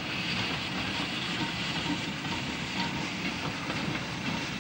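Narrow-gauge steam-hauled goods train running over a bridge: a steady rumble and rattle of the wagons on the rails, cutting off suddenly at the end.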